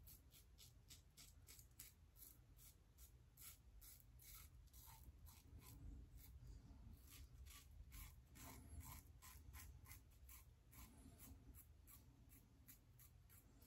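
Faint, quick scraping strokes of a Shave It Shadow double-edge safety razor cutting two and a half days' lathered stubble under the nose and around the lips, a few short strokes a second.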